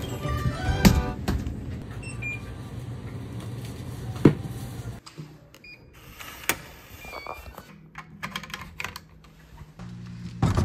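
Soft background music with a few sharp clicks, cutting off about halfway. Then short electronic beeps and clicks from a card-key digital door lock.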